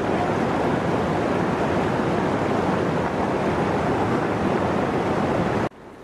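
Steady rushing of a rocky mountain stream flowing over boulders. It cuts off abruptly near the end, leaving a few faint footsteps on a stony path.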